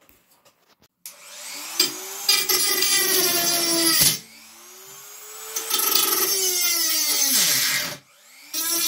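Handheld rotary multitool with a small disc spinning up with a rising whine and grinding into a thin metal rod, its pitch sagging under load. It stops about four seconds in, runs up again, cuts out about eight seconds in and starts once more just before the end.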